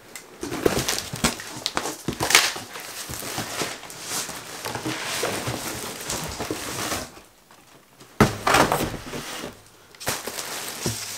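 Cardboard box being unpacked by hand: flaps and contents scraping and rustling, with plastic-wrapped gear crinkling. The handling pauses briefly about seven seconds in, then starts again.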